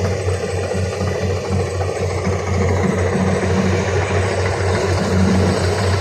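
Engine of a Kubota DC120X rice combine harvester running steadily with a low hum, a little louder from about halfway through.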